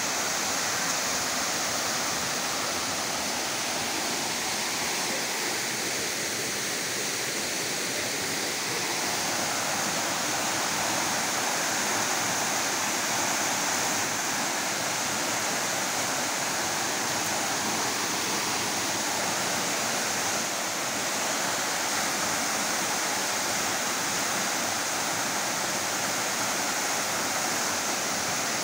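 Waterfall dropping down a rock face into a plunge pool: a steady, unbroken rush of falling water.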